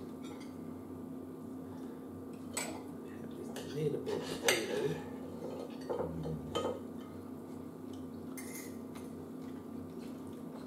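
Forks clinking against dinner plates during a meal: a few scattered, separate clinks over a low steady hum.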